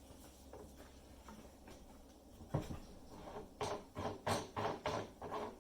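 A single sharp knock about two and a half seconds in, then a quick run of light knocks and clatters, about three a second, near the end: hard parts being handled and knocked together.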